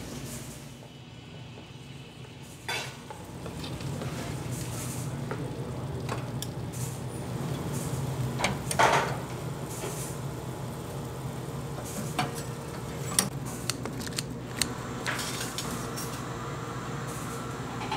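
Kitchen work sounds over a steady low hum: scattered clinks and knocks of pans, trays and utensils, with a louder clatter about nine seconds in.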